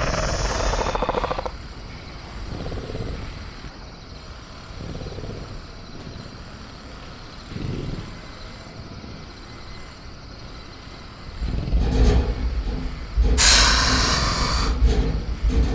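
Sound-effect ambience of a caged velociraptor. It opens with a rasping growl, then has quieter low growls and rumbles. A deep rumble builds near the end, with a loud hiss over it.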